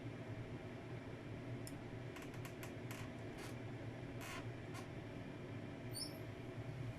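Microwave oven running with a steady low hum, with a run of sharp clicks in the middle and a brief faint high chirp near the end.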